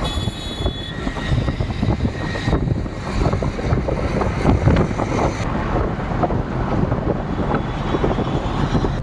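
Road vehicle on the move, recorded from on board: a steady engine and road rumble full of small knocks and rattles, with wind buffeting the microphone.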